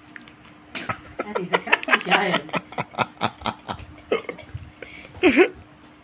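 A boy laughing helplessly as his foot is tickled: a quick run of short ha-ha bursts, then scattered giggles and a loud yelp that swoops down and back up about five seconds in.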